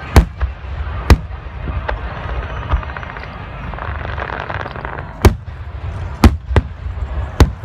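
Aerial fireworks bursting: about six sharp bangs at irregular intervals over a low rumble, with a stretch of crackling about four seconds in.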